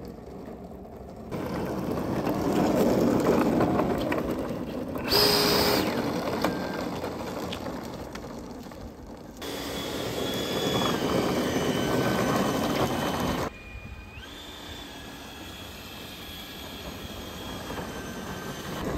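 Electric ducted fan of a 3D-printed RC Yak-15 jet model running as it taxis on asphalt, a thin whine that steps up and down in pitch with the throttle, over the rumble and rattle of its small wheels and landing gear rolling on the rough road. The sound changes abruptly several times.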